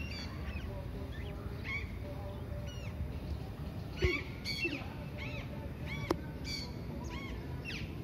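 Alexandrine parakeets calling in flight: repeated short, arched screeches, one after another, over a steady low rumble. Two sharp clicks cut in, about four and six seconds in.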